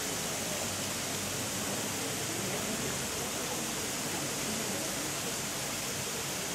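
Steady hiss of water spraying from a row of sprinkler nozzles into a fine mist curtain and falling onto wet paving.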